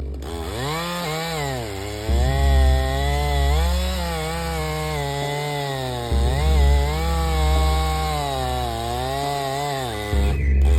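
Chainsaw running and cutting into a tree, its engine pitch repeatedly dipping as the chain bites and rising again as it frees up.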